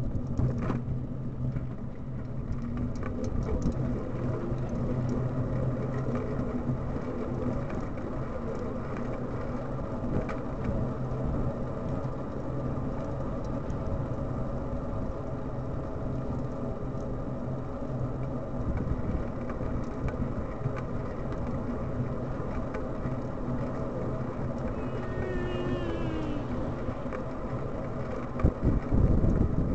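Riding noise of a bicycle on a paved path, picked up by the camera on the bike: a steady rumble of tyres on asphalt and frame rattle, with a low hum and wind on the microphone. A short falling squeak comes about 25 seconds in, and a louder low bump or gust near the end.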